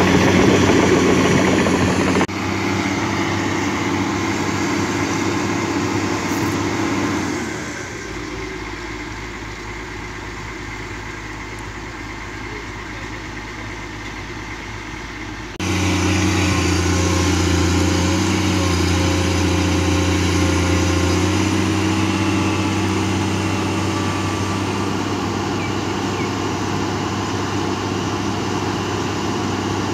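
Komatsu PC210 excavator's six-cylinder diesel engine running steadily under hydraulic work as the machine digs and lifts soil. The sound changes abruptly about two seconds in and again about halfway through, and is quieter, with a lower hum, for a stretch in the middle.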